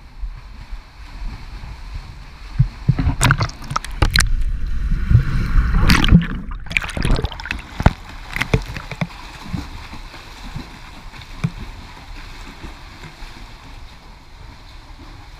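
Water splashing and churning right at the microphone as a swimmer strokes and kicks beside a camera held at the water's surface. It comes in loud bursts with sharp slaps between about three and nine seconds in, then settles to softer lapping and a low rumble.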